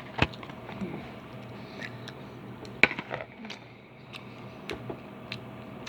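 A few scattered light clicks and knocks of tableware and utensils handled at a meal, the sharpest about a quarter second in and another near the middle, over a faint steady room hum.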